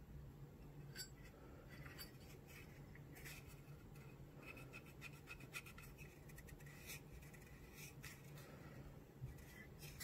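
Faint handling noise from an empty Zippo lighter case: fingertips rubbing and scraping over its black crackle finish, with several light clicks as the lid and hinge are moved.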